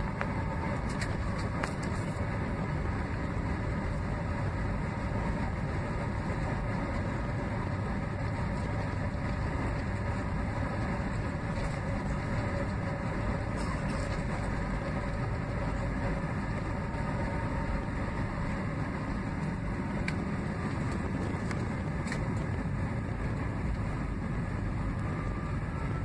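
Steady noise of a jet airliner's engines and rushing air heard from inside the cabin during the takeoff roll.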